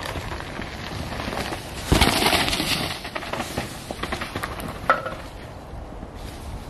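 Full-suspension mountain bike riding down a dry dirt and leaf-litter trail: tyres crunching and rolling, with a loud thump about two seconds in followed by about a second of scraping, and a sharp clack near five seconds.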